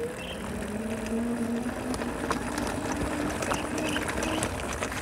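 Electric bicycle ridden over a rough unpaved track: a steady rumble of tyres on the ground with scattered small rattles and clicks as it goes over bumps, and a faint low hum underneath.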